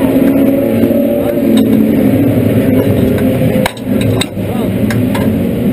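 Engine running steadily at low revs, heard from inside a speedway street stock car, with a few sharp knocks about three and a half to four seconds in.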